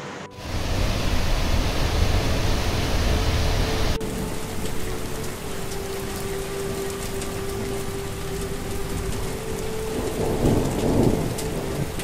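Heavy rain falling, with a low rumble of thunder for the first few seconds. After an abrupt change about four seconds in, it settles into steady rain with single drops heard close by.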